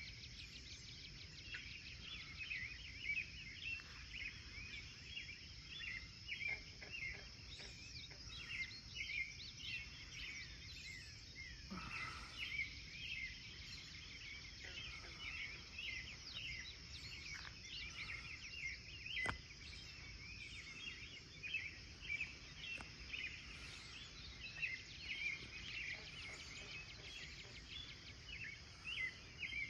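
Dawn birdsong: many short chirps and calls from several birds, over a steady high insect drone.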